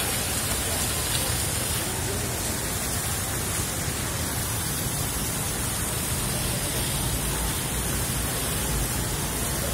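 Steady hiss of rain falling on a wet paved street.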